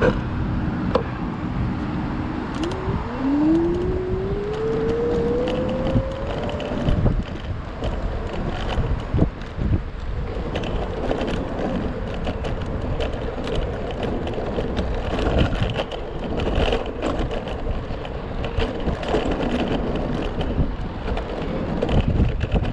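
Three-wheeled electric scooter on the move. Its motor whine rises in pitch for about four seconds as it picks up speed, then holds a steady pitch over road and wind noise. Small clicks and knocks come from the ride over the road surface.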